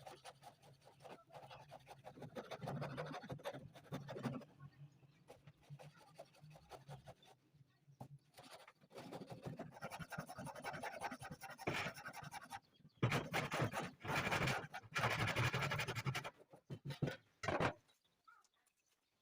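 Rapid scraping strokes, like wood being sanded or rasped by hand, in bouts that stop and start. The loudest and longest bout comes about two-thirds through, followed by a few short strokes.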